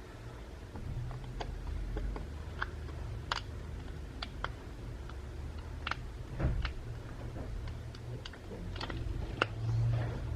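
Scattered, irregular light clicks and taps of small repair tools and parts being handled on a smartphone during reassembly, over a low steady hum.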